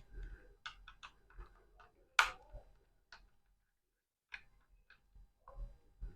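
Small clicks and taps of a laptop hard disk's metal mounting caddy and screws being handled as the caddy is taken off the drive, with one sharper knock about two seconds in.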